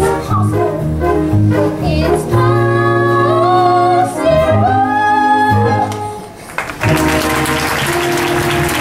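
Stage-musical singing with accompaniment, ending on long held notes. About seven seconds in, audience applause breaks out over the continuing music.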